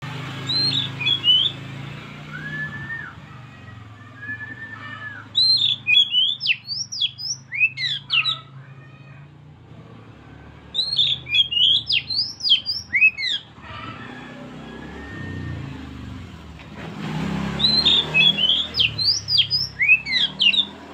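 Oriental magpie-robin singing: a few slurred whistles, then three bursts of quick, sharply sliding whistled and scratchy notes, each a few seconds long with short pauses between.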